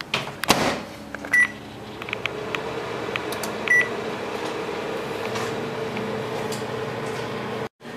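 Microwave oven door shut with a knock, then two short keypad beeps as the time is set and started, then the oven running with a steady hum. The sound cuts off abruptly near the end.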